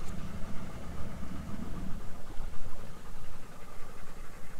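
Outboard motor on an inflatable dinghy running as the dinghy moves across the water.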